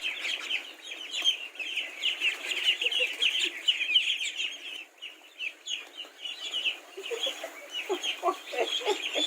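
A brood of chicks peeping rapidly and continuously, many high, short, falling cheeps, with a hen clucking several times near the end.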